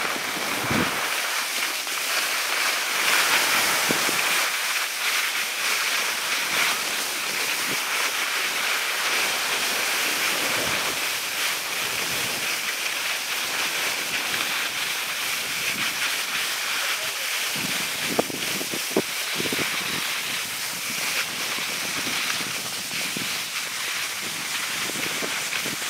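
Steady hiss of skis sliding over packed, groomed snow, mixed with wind on the microphone, with a few faint knocks about three-quarters of the way through.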